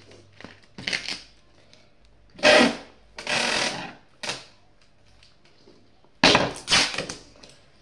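Craft materials being handled close to the microphone: several loud rustling, scraping bursts, the loudest about two and a half seconds in and again near the end.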